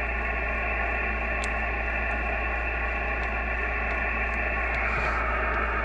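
ICOM IC-7300 HF transceiver's speaker hissing with steady band noise and static while receiving lower sideband on the 80-metre band, the hiss cut off above about 3 kHz by the sideband filter, over a steady low hum.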